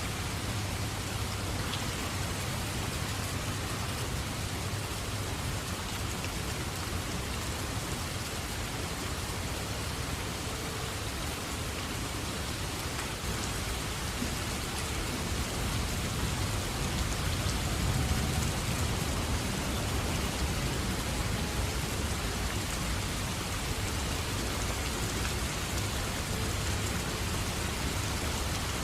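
Steady rain falling, with a low rumble of thunder swelling and fading a little past the middle.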